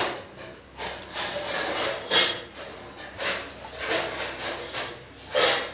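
Hands rubbing and scraping as boiled potatoes are peeled by hand and the loose skins are scooped up off a concrete floor: about five irregular scrapes, the loudest about two seconds in and near the end.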